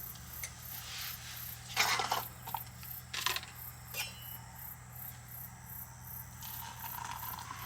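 Insects chirping in a steady, high-pitched pulse of about three beats a second. Two brief rustles come around two and three seconds in, with a small click a second later.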